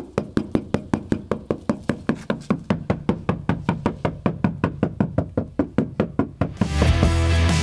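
Knuckles knocking rapidly on the sheet-metal rear quarter panel of a Toyota Land Cruiser 80 Series, about five or six knocks a second, to test the panel now that sound deadening mat is stuck to its inside. Music comes in near the end.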